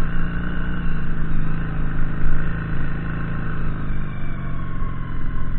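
Honda CB400 motorcycle engine running steadily under load, pulling uphill in first gear on a dirt track.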